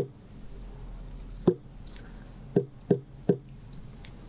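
Ceremonial knocks in a small room: one at the start, a single knock about a second and a half later, then three quick knocks near the end. Together with the two just before, they make a battery of seven knocks, grouped three, one, three.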